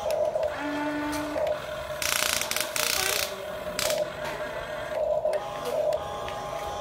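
Huina toy RC excavator's electric gear motors whining as the boom and bucket move, with a steady tone that swells louder at times. About two seconds in there is a second of rushing, scraping noise as the bucket works the sand.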